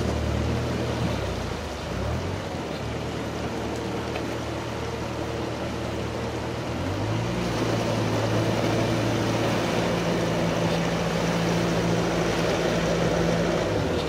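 Bobcat skid steer's diesel engine running, its pitch sagging about a second in and then revving up to a higher steady speed about seven seconds in as the machine works to pull itself out of the mud. Rushing creek water from a culvert runs underneath.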